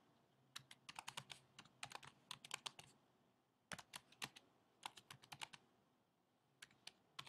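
Faint computer keyboard typing: quick runs of key clicks in four bursts with short pauses between them.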